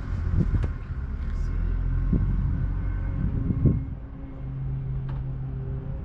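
A steady low mechanical hum, with a few short knocks about half a second, two seconds and three and a half seconds in.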